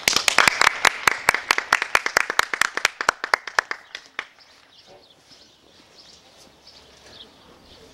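A few people clapping, quick irregular claps that thin out and stop after about four seconds.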